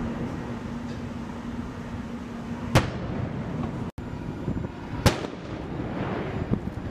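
Ceremonial saluting guns firing: two sharp, echoing reports about two seconds apart, the first a little before halfway, over a steady background rumble.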